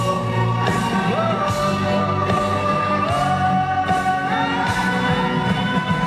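A male singer sings live into a handheld microphone over amplified band music with a steady beat, holding long notes that step up in pitch twice in the second half.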